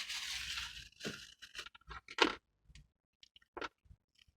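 Close-up eating sounds: a few separate crunches and clicks of food being bitten and chewed, the loudest about two seconds in. A rushing hiss of breeze on the microphone fills the first second.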